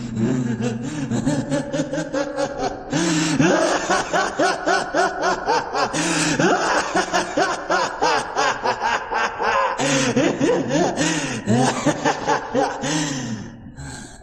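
A man's long villainous laugh, the anime voice-acted laugh of Kira (Light Yagami), made of rapid "ha" pulses that swing up and down in pitch. It grows louder about three seconds in and dies away near the end.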